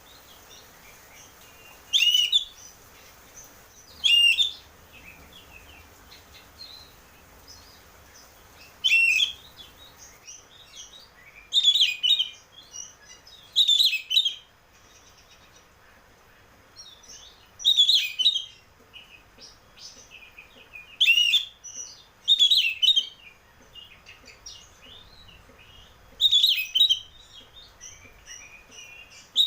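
Oriental magpie-robin (kacer) singing loud, short, varied phrases every two to four seconds, with softer twittering notes between them.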